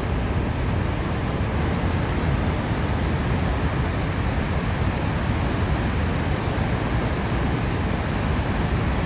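Niagara Falls' falling water rushing steadily, an even, unbroken noise heaviest in the low end.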